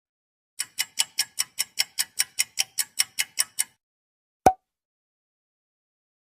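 Ticking sound effect: a fast run of about sixteen even ticks, roughly five a second, lasting about three seconds, then a single separate click about a second later.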